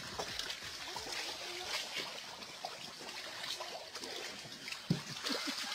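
Shallow muddy water splashing and sloshing as a crowd of catfish wriggle and thrash and a child's hands grab at them. There are irregular small splashes, with one sharper splash near the end.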